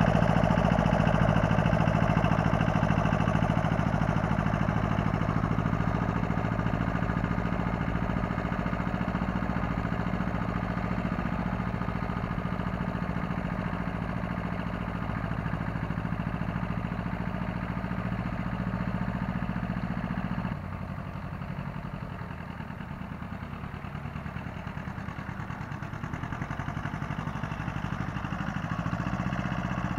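Small Honda tractor's engine running steadily, slowly growing fainter as it manoeuvres away; about twenty seconds in the engine note drops suddenly and turns quieter.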